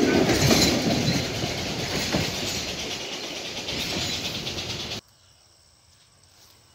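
A two-foot narrow-gauge train's coaches rolling away on the rails, growing fainter. The sound cuts off abruptly about five seconds in, leaving near silence.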